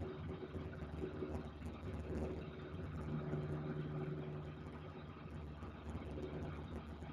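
Piston engine and propeller of a high-wing light aircraft droning steadily in cruise, heard from inside the cabin.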